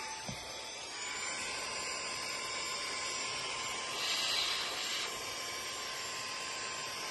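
AGARO Royal Mini handheld cordless vacuum cleaner with a 100-watt motor, running steadily with a high motor whine over an airy hiss, its pitch stepping up slightly about a second in. The hiss swells briefly about four seconds in as the nozzle passes over the dusty floor mat.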